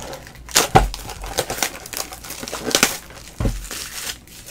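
Plastic shrink-wrap crinkling as it is pulled off a small cardboard box, in irregular crackles, with louder ones about a second in and around three seconds.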